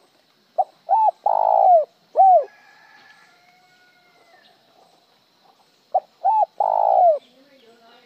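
Spotted dove cooing twice. The first call runs two short notes into a long note and ends with a separate short tail note; the second call, about five seconds later, is plain, stopping after the long note with no tail note.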